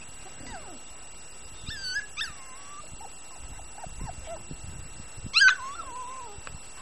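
Puppies yipping and whining: a couple of high yips about two seconds in, a few soft short whines after that, and a loud yip a little after five seconds that trails off into a wavering whine.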